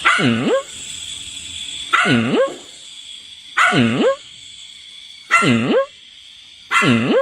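A dog making five loud, drawn-out calls about every second and a half, each dipping in pitch and rising again.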